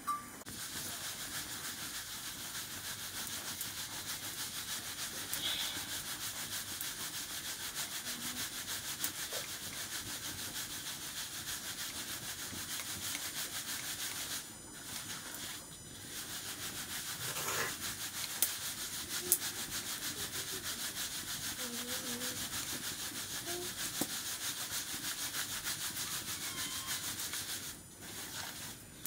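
Rice grains being rubbed and swirled by hand against the inside of a bowl: a steady, fast scraping rustle, with brief pauses about halfway and near the end.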